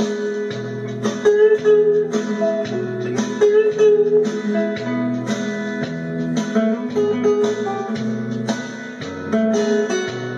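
Instrumental break in a country-song backing track: plucked guitar picking a melody over strummed chords.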